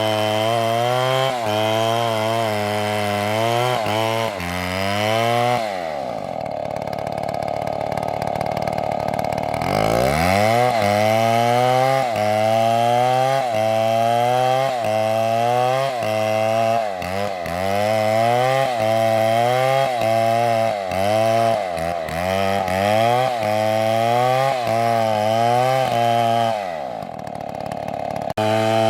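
Chainsaw cutting wood, its engine pitch wavering rapidly as the chain bites under load. Twice, about six seconds in and near the end, the engine drops back to idle and then revs up again.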